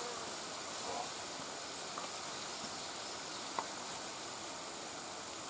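Steady, even hiss of outdoor ambience, with a few faint ticks.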